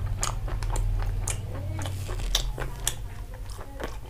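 Close-up chewing of a mouthful of cooked chicken: wet, irregular mouth clicks and smacks.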